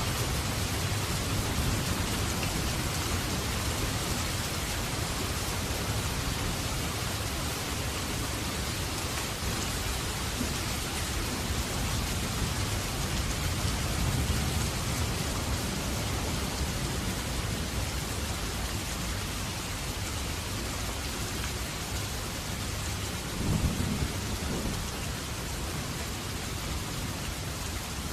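Steady rain falling, with low rolling thunder underneath and a louder rumble near the end.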